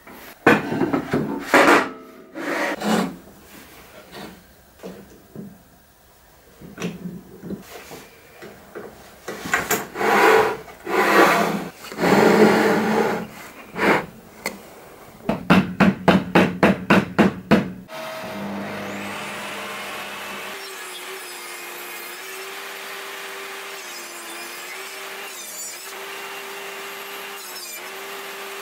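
Wooden boards handled against a table saw: rubbing, scraping and knocks of wood on the steel table, with a quick run of about eight strokes a little past halfway. Then, for the last ten seconds, a steady even sound with one wavering tone.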